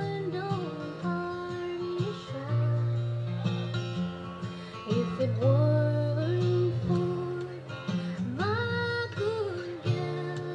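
Background music: a song with guitar, in a stretch without sung words.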